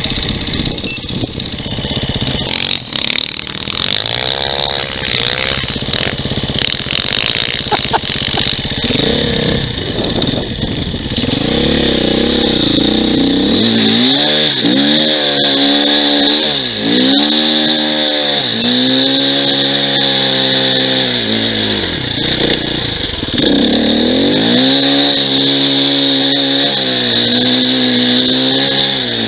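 Off-road motorcycle engine climbing a snowy slope, its pitch rising and falling again and again as the throttle is worked. For the first ten seconds or so the engine is buried under rough rumble and knocks, with the engine note coming clear after that.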